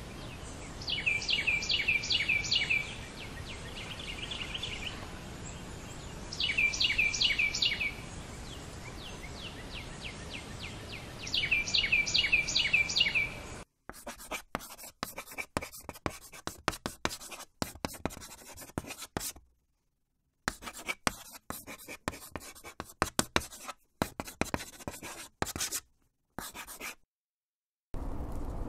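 For the first half, a bird-like call of rapid high chirps repeats three times, about five seconds apart, over a steady hiss. Then a marker scratches on a board in quick strokes with short pauses: the writing sound effect of a hand-drawn animation.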